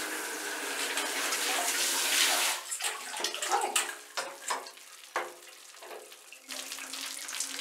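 Handheld shower spraying water onto a window mosquito screen in a bathtub, a steady hiss that cuts off about two and a half seconds in. A run of knocks, splashes and drips follows as the screen and shower are handled, and running water comes back near the end.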